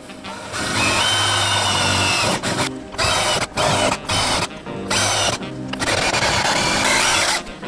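Makita cordless drill boring through a thin metal enclosure panel. It runs in several short bursts with a whine and the grind of the bit cutting metal. Background music plays underneath.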